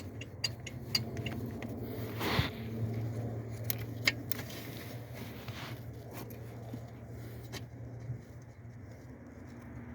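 Scattered metallic clicks and clinks of hand tools on metal parts, with a brief scrape about two seconds in, over a steady low hum.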